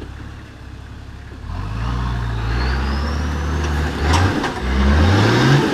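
Nissan GQ Patrol's 4.2-litre turbo diesel engine revving under load as the four-wheel drive climbs over rock ledges. It runs low at first, revs up about a second and a half in, dips briefly near four seconds, then climbs in pitch again before easing off.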